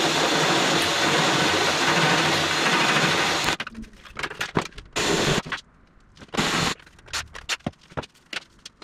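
Cordless drill boring enlarged snap-bushing holes through a thin aluminium bulkhead, running steadily and then stopping about three and a half seconds in. Two short bursts of noise follow, then light clicks and taps as the metal part is handled.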